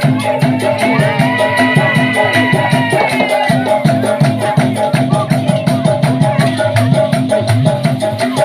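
Dikir barat ensemble music: maracas shaking in a fast, steady rhythm over drums, with a held melodic line for a couple of seconds about a second in.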